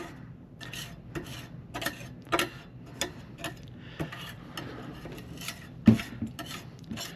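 Irregular metallic clicks, clinks and scrapes of hand tools and parts being worked on a power-supply chassis during disassembly, with one louder knock about six seconds in.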